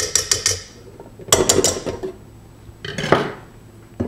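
Kitchen utensils on a stand mixer's steel bowl and whisk: fast, even, ringing clinks of a spatula tapping the metal, about eight a second, stopping under a second in. Then two bouts of clanking and scraping as the whisk attachment and the steel bowl are taken off the mixer and set on the counter.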